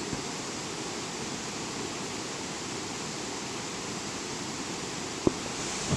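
Steady hiss of outdoor background noise with no bird calls, and one sharp click about five seconds in.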